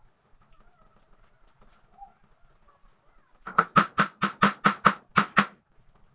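Hammer blows on wood: about nine quick, evenly spaced strikes over roughly two seconds, starting a little past the middle.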